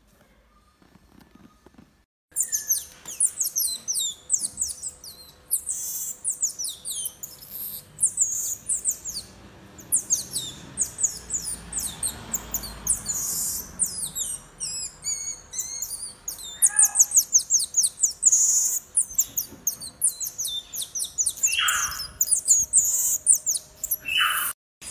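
Common marmosets giving rapid, high-pitched chirping and twittering calls, many short falling chirps in quick succession with a few longer squeaks, starting about two seconds in.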